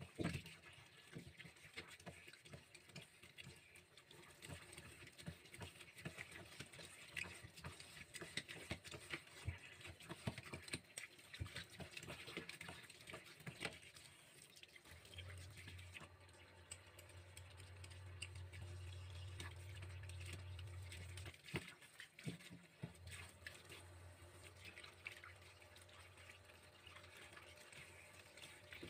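Faint kitchen prep sounds: many small taps, knocks and wet handling noises as wet hands handle vegetables on a plastic cutting board. A low steady hum comes in about halfway through and stops a few seconds later.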